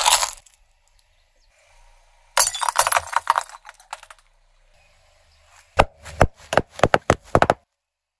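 Car tyre rolling onto a brittle ceramic item and shattering it: a dense burst of cracking and crunching, then a string of separate sharp cracks and clinks as the pieces break under the tyre.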